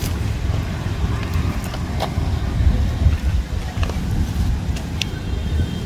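Uneven low outdoor rumble with a few faint clicks. A thin, steady high tone comes in near the end.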